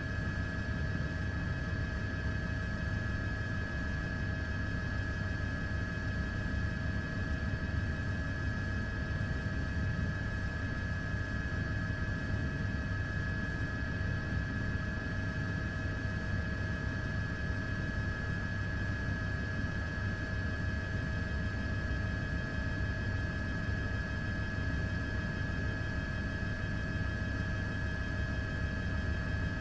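Steady drone of the aircraft carrying the camera: a constant low rumble with a few fixed whining tones above it, unchanging throughout.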